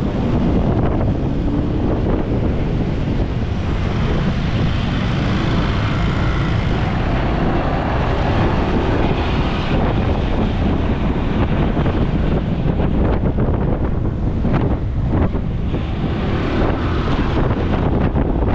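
Wind buffeting the microphone on a moving motorbike taxi, with road and traffic noise underneath.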